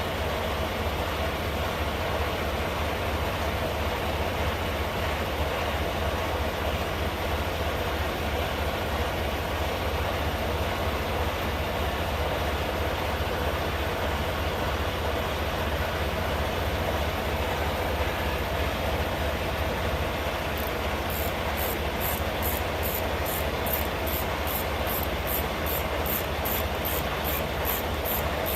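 Steady low running noise of an idling truck engine. A faint, high regular ticking, about two a second, joins it about two-thirds of the way in.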